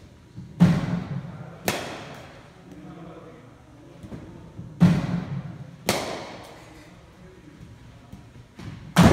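Sharp thuds echoing in a large indoor hall, coming in three pairs about a second apart.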